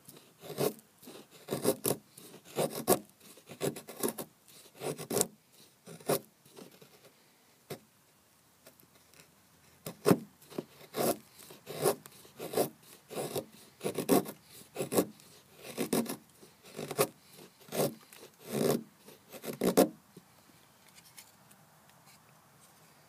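Knife blade shaving thin curls down a wooden stick to make a feather stick: a run of short, rasping strokes, one about every half second to second. There is a brief pause partway through, and the strokes stop near the end.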